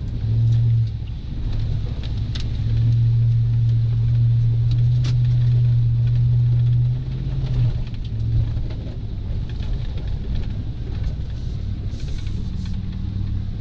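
Ford Super Duty pickup's engine heard from inside the cab, working hard under load as the truck pushes through deep mud. It surges briefly about half a second in, pulls loud for several seconds, then eases back to a steadier run about eight seconds in.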